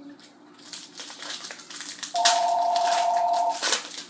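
Crinkling and tearing of a foil trading-card pack wrapper as it is opened and handled. Partway through, a steady electronic two-note tone sounds for about a second and a half.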